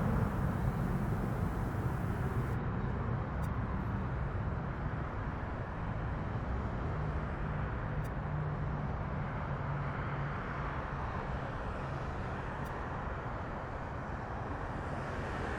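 Distant jet airliner engine noise: a steady low rumble with a faint hum, slowly easing off.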